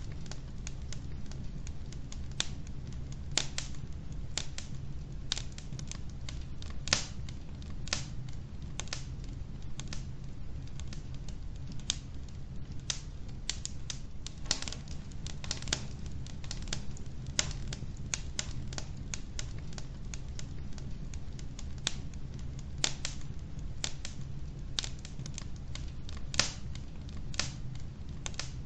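Wood fire burning in a fireplace, crackling: irregular sharp pops and snaps of burning logs, roughly a couple a second, over a steady low rumble of the flames.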